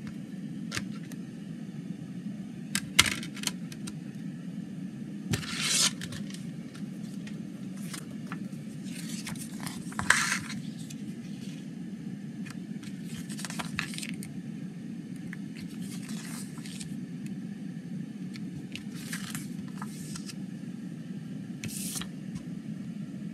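A plastic CD jewel case and its paper booklet being handled: a few sharp plastic clicks around three seconds in and a louder click near ten seconds, with short rustles and scrapes of booklet pages between them. A steady low hum runs underneath.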